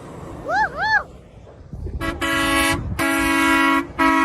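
Truck air horn honking in a run of blasts on one steady tone: a short toot about two seconds in, then two longer held blasts, then another starting near the end. Before the horn, a person lets out a whooping 'woo-hoo'.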